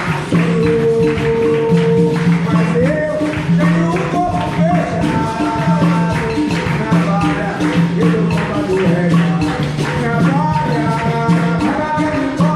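Capoeira music: a voice singing over a repeating low note and steady percussion with short jingling strikes.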